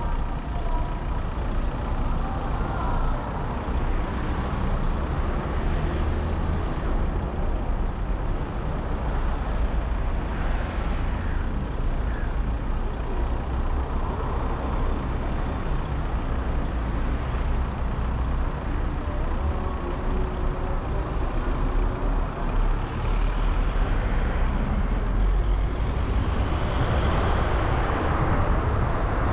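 Steady road and engine rumble of a car driving through town traffic, with heavier vehicles such as trucks or buses in the mix; it grows a little louder near the end.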